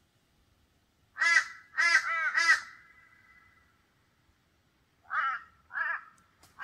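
Crow cawing: four caws in quick succession about a second in, then two more near the end.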